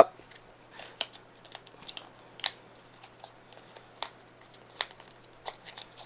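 Small Apple cardboard cable box being opened by hand: faint scattered crackles and clicks as the inner tray slides out.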